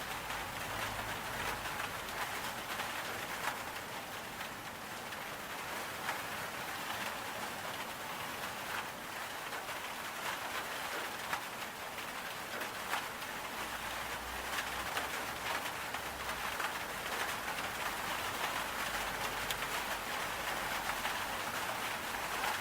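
Steady rain falling, a dense hiss scattered with many individual drops ticking.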